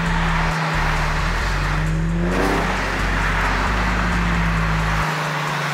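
Infiniti G37's 3.7-litre VQ V6 running at a steady cruise, with a droning engine note over loud road and wind noise. The note dips and climbs back briefly about two seconds in.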